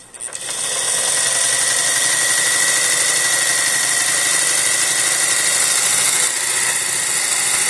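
Pfaff 260 sewing machine running steadily on its new replacement motor, with a steady high whine over the rapid clatter of the needle mechanism. It drops out briefly right at the start and picks up again a moment later.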